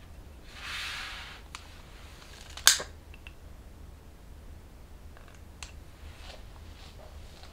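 Quiet handling of a glass jar candle: a brief soft scrape about a second in, then one sharp click and a few faint taps as the candle is lit with a long lighter.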